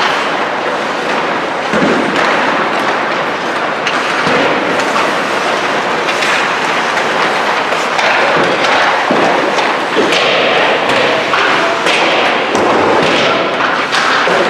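Ice hockey practice on an indoor rink: a steady noisy din of skates on the ice, broken by repeated sharp knocks and thuds of pucks and sticks against the boards.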